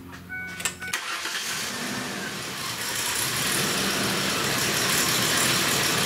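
A few clicks, then about a second in the 2002 Ford Explorer Sport Trac's 4.0-litre V6 starts and runs, getting louder over the next two seconds before settling. The engine is running rough and shaking from a misfire on cylinder 6.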